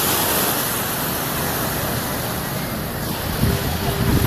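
Ocean surf washing in with a steady rush, wind buffeting the microphone. Near the end low wind rumbles on the microphone grow stronger and a faint steady hum comes in.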